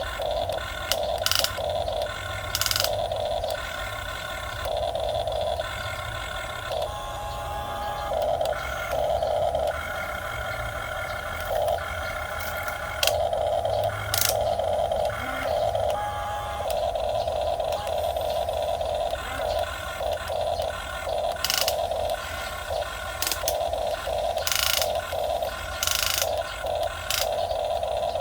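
Small electric motors of a radio-controlled model excavator whining in short stretches as the controls are worked, starting and stopping every second or two. Scattered clicks and scrapes come in between.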